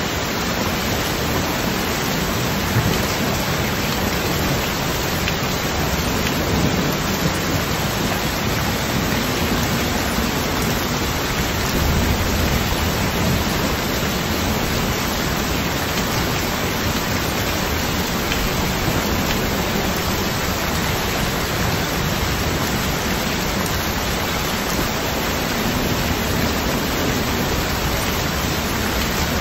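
Heavy rain pouring steadily onto a flooded street, a dense, even hiss of water striking standing water. A low rumble swells briefly about twelve seconds in.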